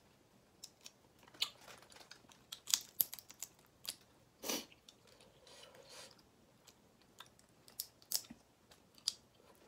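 Shrimp shells being cracked and peeled apart by hand and bitten, a string of sharp clicks and snaps, with wet chewing and smacking in between. The loudest crack comes a little before the middle.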